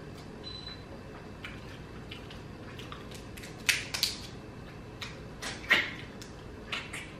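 Crab cooked in coconut milk being cracked and picked apart by hand and eaten, close to the microphone: a scatter of small shell clicks and wet crackles, the loudest about halfway through.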